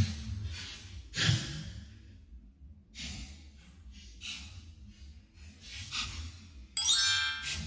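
Dogs breathing and huffing in short, noisy puffs, about a second or so apart, while excited and jumping. Near the end comes a brief, louder synthetic sound effect made of a quick run of pitched tones.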